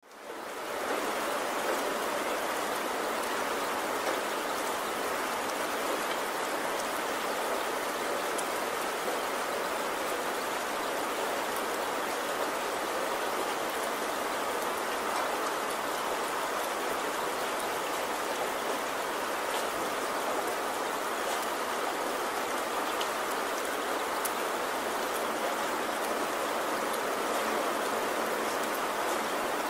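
Steady rain-like water noise that fades in over the first second and then holds level, with scattered faint drop ticks. It is the masking track that subliminal audio is laid under.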